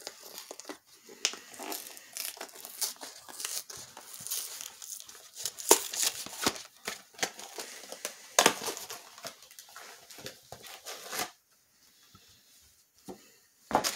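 A cardboard cake mix box being opened and handled, with tearing and crinkling of the packaging in a busy run of rustles and sharp crackles that stops about eleven seconds in.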